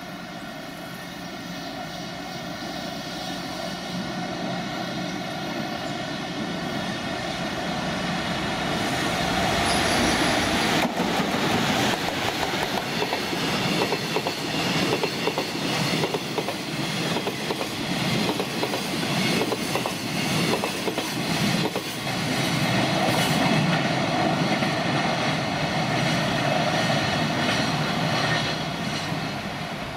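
JR Freight EF200 electric locomotive approaching with a steady whine that grows louder, then passing about ten seconds in. Its train of empty container flat wagons follows with a rhythmic clatter of wheels over rail joints, which fades near the end.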